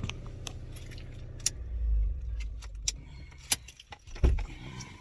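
Scattered small clicks and light metallic rattles, with a low thump about two seconds in and another near the end.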